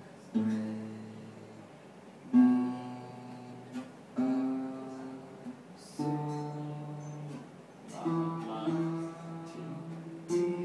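Acoustic guitar playing single strummed chords, each left to ring for about two seconds before the next, about six chords in all, the loudest about two seconds in.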